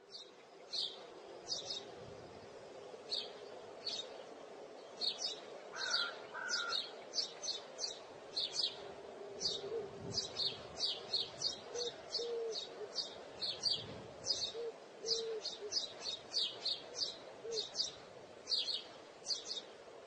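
Small birds chirping: short, high chirps repeated irregularly about twice a second, over a faint steady low hum.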